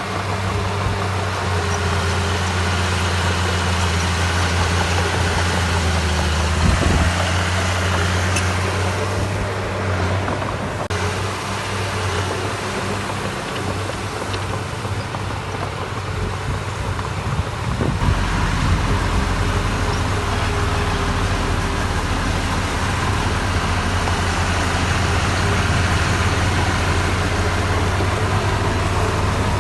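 Heavy diesel construction machinery running steadily with a low engine drone. About 18 seconds in, a deeper engine note comes in.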